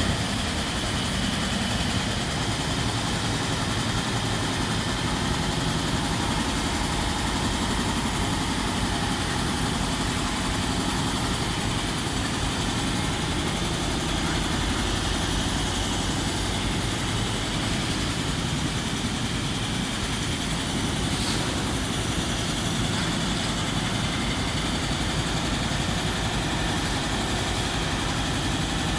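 An engine running steadily at idle, a constant low rumble that does not change.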